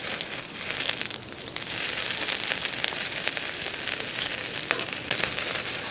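Meat and sausages sizzling on a grill grate over hot charcoal: a steady hiss with many small crackling pops, a little louder from about two seconds in.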